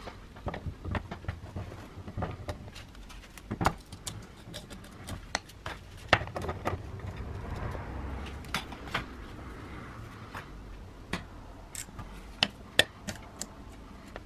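Scattered sharp metallic clicks and clanks as a rusty steel angle iron is shifted and clamped in a bench vise and an angle grinder is set against it; the grinder is not running.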